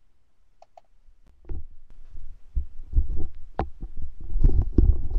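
Irregular low thumps and rumbling picked up by an open web-conference microphone, starting about a second and a half in, with one sharp click near the middle.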